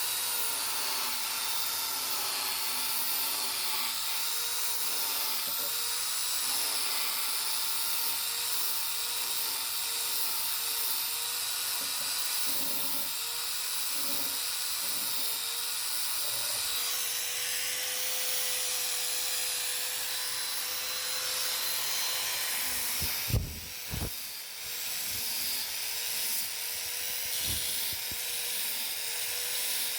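Electric power sander running steadily on wood, a high-pitched motor whine over a rasping hiss. Two sharp knocks come about two-thirds of the way through.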